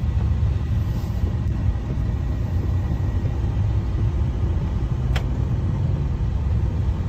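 Steady low rumble of a car driving, heard from inside the cabin, with one sharp click about five seconds in.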